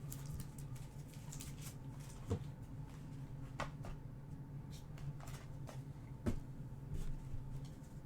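Trading cards being handled and sorted by hand: a few separate light taps and flicks of card stock, over a steady low hum.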